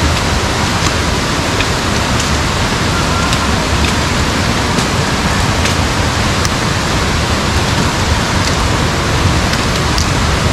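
Loud, steady rush of falling water from a mountain waterfall or stream, an unbroken roar that does not change.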